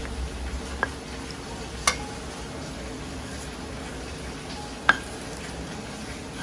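Stone pestle stirring and rubbing wet chili paste and water round a stone mortar, a steady wet scraping, with a few sharp stone-on-stone knocks, the loudest about five seconds in.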